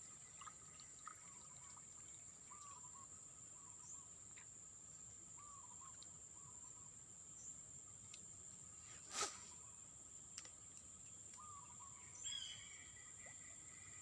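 Faint outdoor ambience: a steady high-pitched whine, with short chirping calls repeating every second or so. There is a sharp click about nine seconds in and a brief cluster of louder calls about twelve seconds in.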